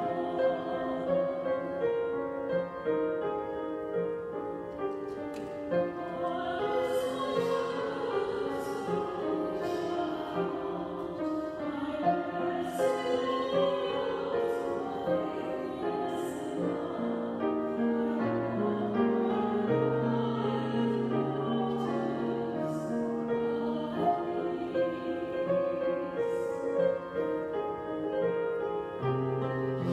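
A slow hymn sung with keyboard accompaniment, its notes held long and running without a break.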